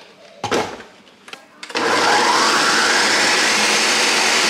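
Ninja Professional 1000-watt countertop blender: a couple of knocks as the jar is set onto the base, then the motor starts a little under two seconds in and runs loud and steady, pureeing boiled tomatillos, chiles, onion and garlic with a little water into salsa verde.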